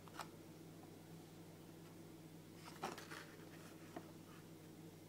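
Faint rustles and light taps of a cardboard Kinder Surprise four-pack box being turned over in the hands, over a steady low hum.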